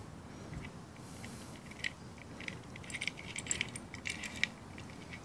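Light metallic clinks and rattles as the loosened clutch spring plate of a Kawasaki KLX140, its long bolts still sitting in it, is worked off the clutch springs by hand. The clinks come in a cluster in the second half.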